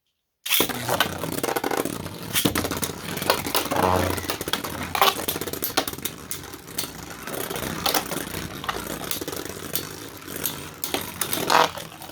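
3D-printed Beyblade spinning tops starting abruptly about half a second in, then spinning, scraping and clashing in a plastic stadium, with many sharp clicks and knocks over a rough, buzzing whirr.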